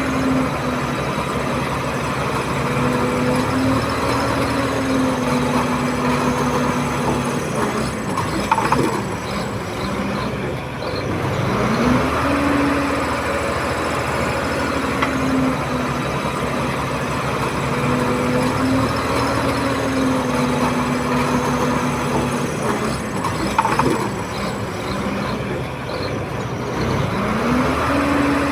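Komatsu D31P crawler bulldozer's diesel engine running steadily, its pitch dipping and climbing back twice, about fifteen seconds apart, with a short knock just before each dip.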